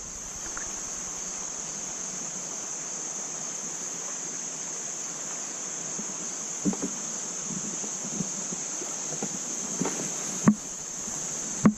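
Insects chirring in a steady high drone, with a few sharp knocks; the two near the end are the loudest.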